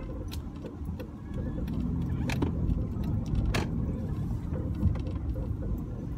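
Car engine and road noise inside the cabin while driving: a steady low rumble, with a couple of faint clicks in the middle.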